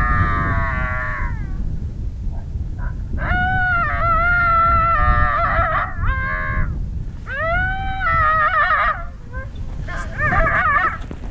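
Recorded coyote howls and yelps played through a FoxPro electronic predator caller: a series of loud, drawn-out calls, each rising at the start and breaking into a quick wavering at the end, with short gaps between them.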